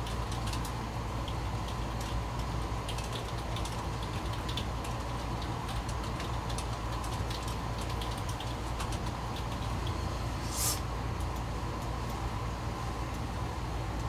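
Light, scattered clicking of a computer keyboard over a steady low hum, with one brief hiss about ten and a half seconds in.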